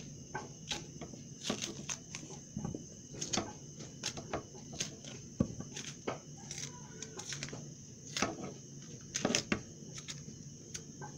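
A kitchen knife cutting into and prising off the thick skin of green plantains, giving irregular sharp clicks and scrapes every half second or so.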